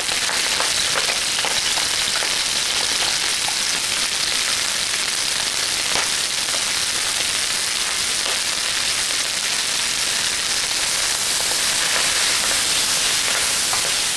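Quartered Brussels sprouts sizzling steadily in hot garlic-infused oil in an electric wok, with scattered crackles through the hiss.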